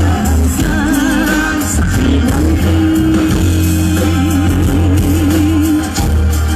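A woman singing an Ecuadorian alborada with strong vibrato on long held notes, over guitar and a steady bass line.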